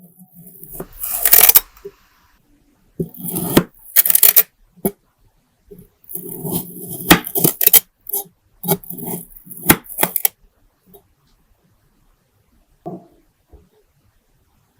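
Kinetic sand being squished and broken apart by hand, in several short crumbling bursts over the first ten seconds or so, then only a couple of faint touches.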